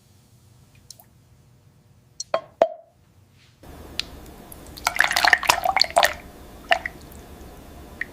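A couple of liquid drops plop. Then a steady low hum sets in and a burst of clinking and clattering follows, with a few single clinks after it.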